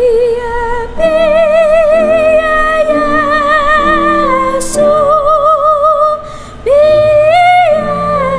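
Soprano singing a classical art song with vibrato over digital piano accompaniment. About six seconds in she pauses briefly for a breath, then rises to a louder held high note.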